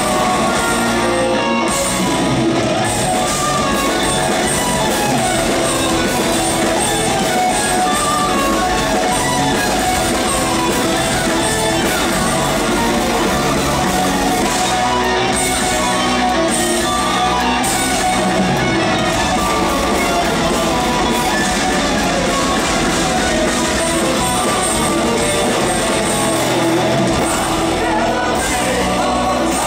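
Live symphonic power metal band playing loud, distorted electric guitars over drums, in a large concert hall.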